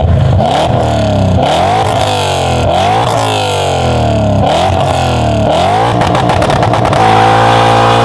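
BMW M V8 engine revving through a sports exhaust in repeated blips, the pitch sweeping up and falling back about once a second, then holding steadier near the end.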